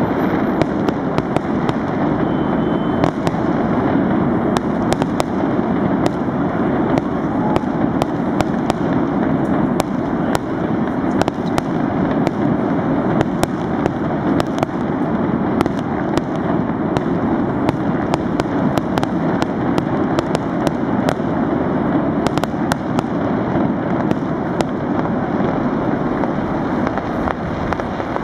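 Fireworks going off close by without pause: many sharp cracks and pops over a constant dense hiss.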